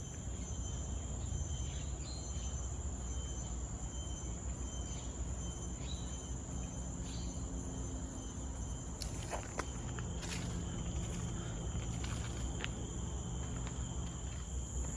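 Rainforest insect chorus: several steady high-pitched drones at once, with no break, over a low rumble. A few short clicks come about two-thirds of the way in.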